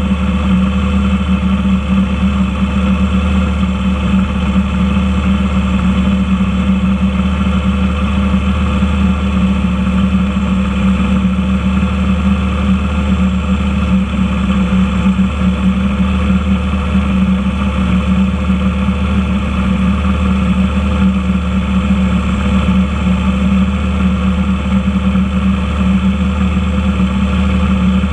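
An engine running steadily at one speed: a low, even drone that does not change.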